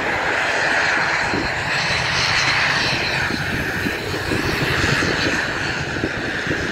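Twin Pratt & Whitney PW127M turboprop engines of an ATR 72-600 airliner running steadily at taxi power as it taxis along the runway.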